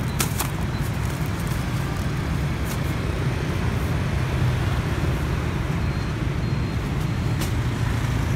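Steady rumble of a motorbike ride through busy city traffic, with the engines of surrounding scooters and road noise. A few short clicks near the start.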